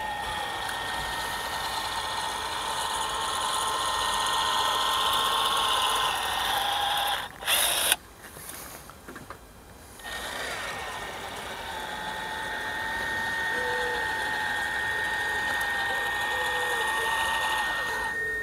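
Battery-powered caulking gun's motor whining steadily as it pushes out a bead of polyurethane windscreen adhesive. It stops about seven seconds in, with a couple of sharp clicks, and starts again about three seconds later.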